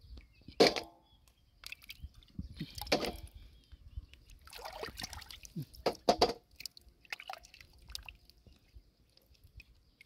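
Shallow muddy water splashing and sloshing in irregular bursts as a hand moves through it gathering clams, with a few sharp clicks.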